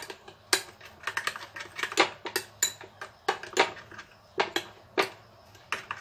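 A spoon stirring in a glass bowl, clinking against the glass in irregular taps two or three times a second as licorice root powder is mixed into a thin liquid.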